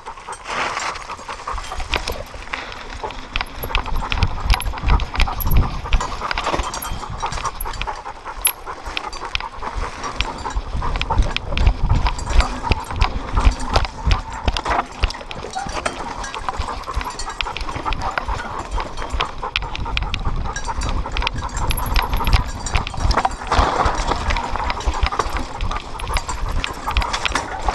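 A dog running fast down a dirt trail, heard through a camera harnessed to its body: a dense, irregular patter of paw strikes and jolts rattling the mount, with the low rumble of its motion.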